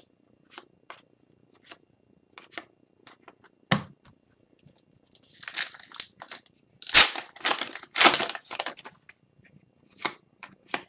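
Trading cards handled with light, scattered clicks, then past the middle a hockey card pack's wrapper is torn open with loud crinkling.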